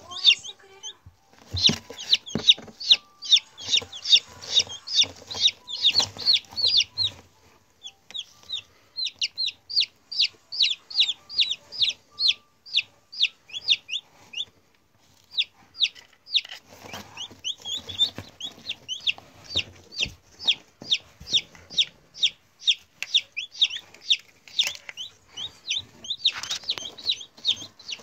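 Newly hatched chicks peeping: rapid, high, short calls that slide downward, several a second, pausing briefly twice, with a low scuffling under them for stretches.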